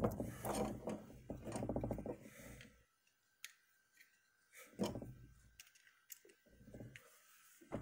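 Small plastic-and-metal clicks from a white plastic plug being fitted onto a lamp cord and a screwdriver tightening its terminal screw. There are a few separate clicks in the second half, after a low hum that stops about three seconds in.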